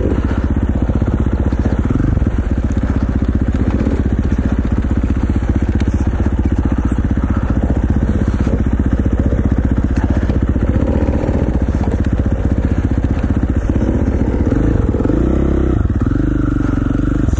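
Single-cylinder dirt bike engine running steadily under way, with the revs rising and falling a few times near the end.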